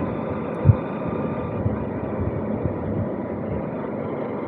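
Honda CBF190X's single-cylinder engine running steadily at low speed, with road and wind noise and a low thump about two-thirds of a second in.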